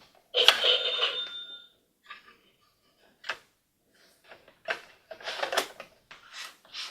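A short bright ring with a rustle about half a second in, then a few separate clicks and rattles of plastic toy pieces being handled.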